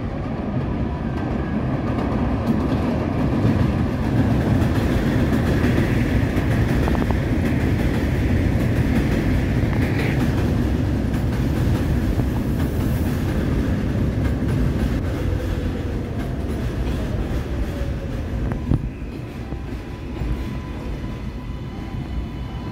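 R188 subway train running past on the elevated steel structure of the IRT Flushing Line: a steady rumble of wheels on rail, loudest in the middle and easing off near the end.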